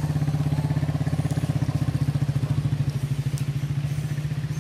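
A small engine running steadily at an even idle with a fast, regular putter.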